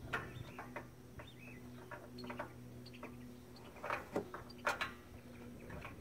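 Scattered metal clicks and knocks from trailer drum-brake parts being handled while a new shoe roller is worked into place, with two sharper knocks about four and five seconds in over a faint steady hum.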